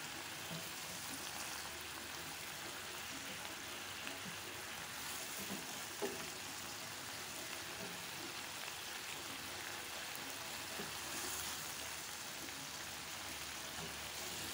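Shrimp, garlic, shallots and chili sizzling steadily in a little water in a pan, stirred with a silicone spatula that scrapes and taps softly; one sharper tap about six seconds in.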